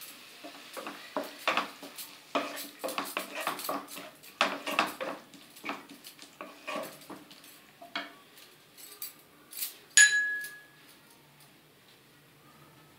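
Wooden slotted spatula stirring and scraping vegetables in a non-stick kadai: a quick, irregular run of knocks and scrapes that dies away after about nine seconds. About ten seconds in comes a single sharp metallic clink that rings briefly.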